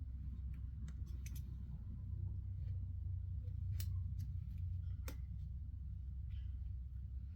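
A belt being handled and fastened: a few sharp clicks, a quick cluster about a second in and single ones near four and five seconds, with light rustling over a steady low hum.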